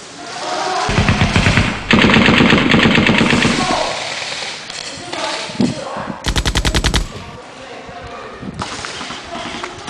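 Airsoft guns firing on full auto in three bursts of rapid shots, about fifteen a second: a short burst about a second in, a longer one lasting about a second and a half, and another short burst past the middle.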